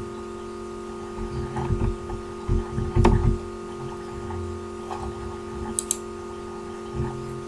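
Steady electrical hum with a few dull knocks, the loudest about three seconds in, then a quick double click of a computer mouse about six seconds in.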